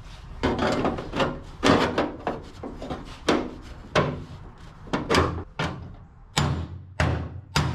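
A sheet-steel box being hammered into the firewall opening of a stripped car body shell: a string of irregular metal-on-metal blows, each a sharp bang with a short ring, roughly one every half second to a second.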